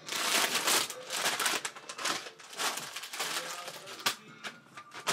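Plastic snack packets crinkling and rustling as they are handled, in irregular bursts, briefly quieter near the end.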